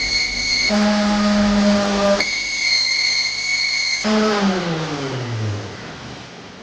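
Electric power tool motor running with a steady pitched whine that changes tone a few times. About four seconds in it is switched off and winds down, its pitch falling as it slows.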